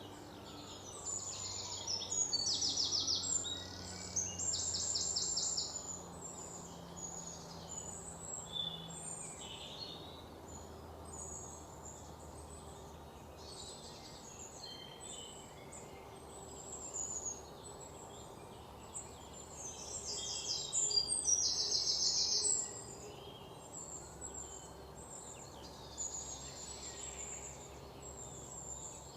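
Several wild birds chirping and singing in a forest morning chorus. Loud bouts of high, rapid trilling come about one to six seconds in and again about twenty seconds in, over a faint steady hiss.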